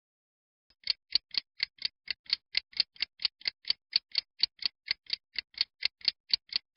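Clock ticking, sharp and evenly spaced at about four ticks a second, starting about a second in.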